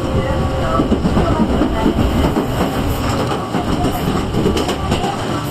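Tobu 8000-series electric train running, with a steady rumble and the clatter of its wheels over the rails.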